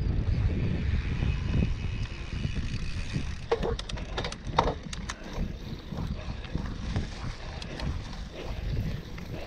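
Mountain bike ridden on a forest trail: a low rumble of tyres and wind on the microphone, with a cluster of sharp clicks and rattles about three and a half to five seconds in.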